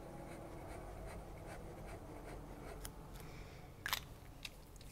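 Faint scratching of a Sailor Compass fountain pen's medium-fine steel nib on grid notebook paper as loops are written, then a sharp click near the end as the pen is capped.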